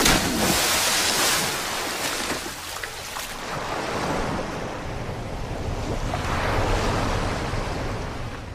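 Ocean surf sound effect: waves washing in, swelling and easing in slow surges.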